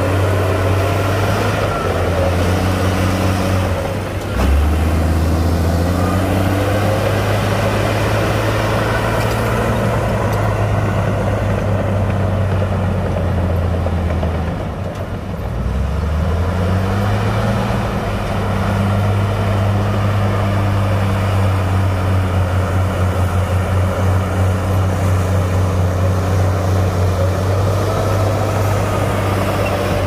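Heavy diesel engines of dump trucks and a bulldozer running steadily. About halfway through, the engine note drops, then climbs back up as an engine revs.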